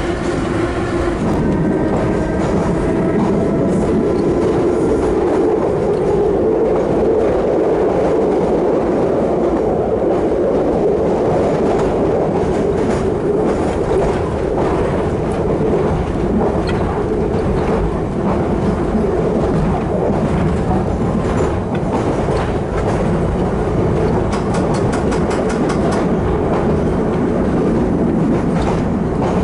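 Interior ride sound of a 1938-built London Underground tube-stock carriage (Island Line Class 483) running along the track: a steady rumble of wheels on rail, with the clickety-clack of rail joints. A whining tone is heard during the first few seconds.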